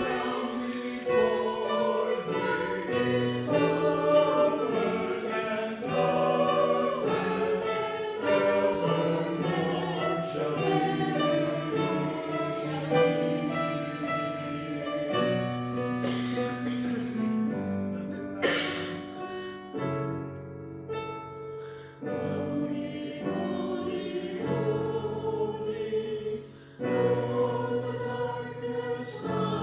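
Handbell choir playing a piece in parts: ringing chords of several bells at once, changing about every second.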